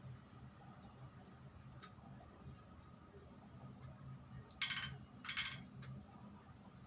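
Low steady hum with faint ticks; about four and a half seconds in, two short noisy rustles half a second apart, from handling or eating a mandarin orange.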